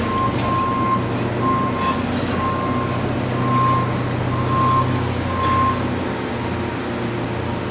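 Reversing alarm on a heavy demolition machine beeping about once a second, six beeps that stop about three quarters of the way through, over its diesel engine running steadily.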